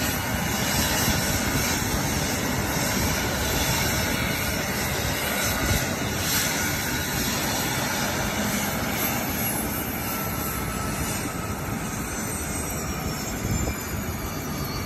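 AgustaWestland AW139 twin-turbine helicopter running on the ground with its rotors turning: a steady, loud turbine and rotor rush. A faint high whine slides down in pitch over the last few seconds.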